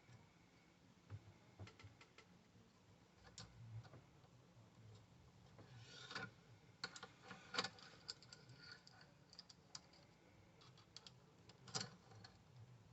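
Faint, scattered light clicks and taps of small parts being handled at a workbench, with a few sharper clicks about halfway through and one near the end, over near-silent room tone.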